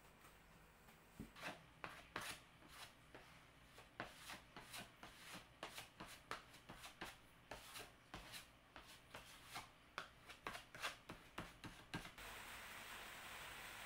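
Faint hand-sanding of a plywood board with a sanding pad: short rubbing strokes, about two a second. About twelve seconds in they stop and a steady hiss takes over.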